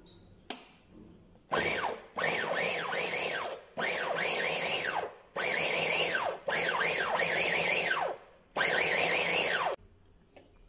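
A 250 W Orpat electric vegetable chopper is pulsed in six short bursts as its blades chop cabbage. The motor whine swoops up and down in pitch within each burst as the chunks are cut. A click comes just before the first burst.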